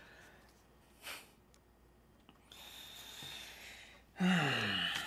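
A person's breathing: a brief breath about a second in, then a long hissing breath, then near the end a loud voiced sigh that falls in pitch.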